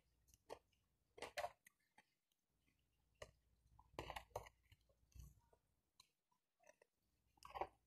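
Faint chewing and mouth sounds of someone eating fried chicken: a scattering of short, quiet crunches and clicks with near silence between them.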